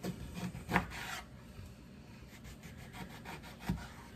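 Kitchen knife sawing through a lemon on a wooden cutting board: quick scratchy cutting strokes, with a few knocks of the blade on the board, the loudest under a second in.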